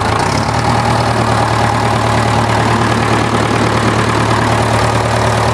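1964 David Brown 880 Implematic tractor's diesel engine idling steadily while warming up after a cold start.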